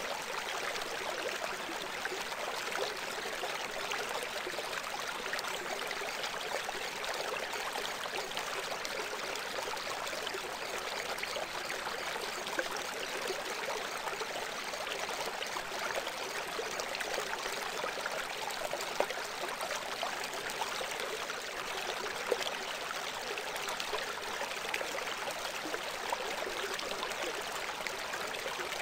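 Steady sound of running water, like a flowing stream, even and unbroken, thin and hissy with little low rumble.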